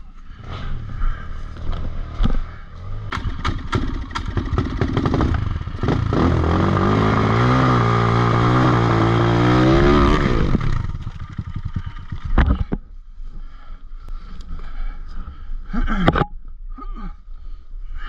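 Avantis 250 enduro dirt bike engine running, revved hard for about four seconds in the middle and then dropping away, as the bike is worked on a steep dirt slope. Before the rev come irregular clatter and scraping from the bike being handled.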